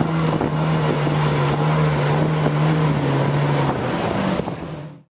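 Motorised river longboat's outboard engine running steadily at speed, with water rushing along the hull and wind on the microphone. The sound cuts off suddenly near the end.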